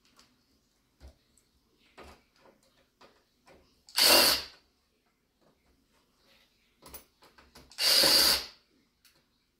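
Two short bursts from a cordless electric screwdriver or drill driver, about four seconds apart, with light clicks and knocks of screws and parts being handled between them.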